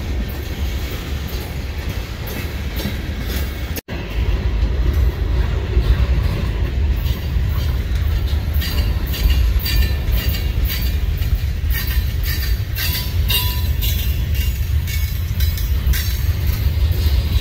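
Freight cars of a Norfolk Southern train rolling past: a steady low rumble with the clickety-clack of steel wheels on the rails. The clacks grow sharper and more frequent in the second half.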